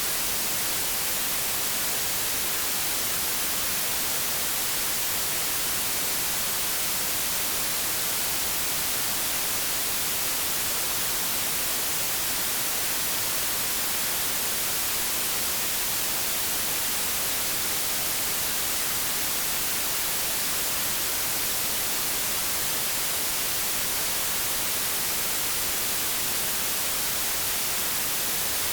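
Steady white noise, a constant hiss of static like an untuned TV or radio, even and unchanging, strongest in the high register.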